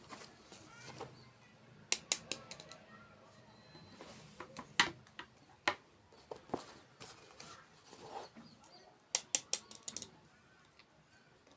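Close-miked ASMR eating sounds: crisp, crackly bites and crunches of sweets, coming in irregular clusters of sharp clicks.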